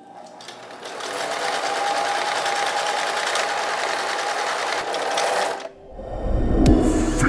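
Electric domestic sewing machine running at speed, its needle stitching rapidly through fabric. It builds up over the first second and stops abruptly about five and a half seconds in. A deep bass swell of electronic music then rises near the end.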